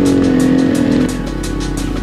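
Off-road motorcycle engine running under way, its pitch shifting with the revs and easing off about a second in, with music playing over it.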